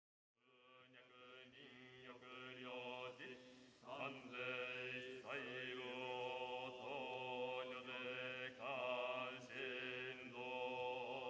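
Buddhist sutra chanting by several voices in unison over a steady low drone. It fades in about half a second in and grows louder around four seconds in.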